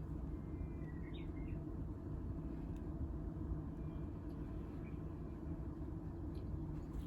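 A faint Japanese bush warbler song, a held whistle that breaks into a quick higher flourish about a second in, with a fainter short call a few seconds later, over a steady low rumble.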